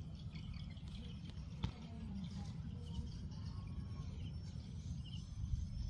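Steady low rumble of wind and handling noise on the microphone, with scattered faint, short high chirps from small birds in the background and one sharp click about a second and a half in.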